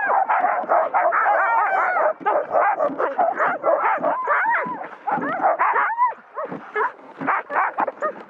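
A team of harnessed sled huskies barking and yelping excitedly together. Many dogs overlap at first, then the calls thin out after about five seconds.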